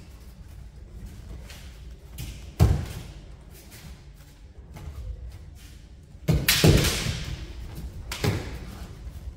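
Kendo bout: impacts from bamboo shinai strikes and stamping feet on the mats. There is a sharp thud about two and a half seconds in, a louder flurry of hits around six and a half seconds, and another thud near eight seconds.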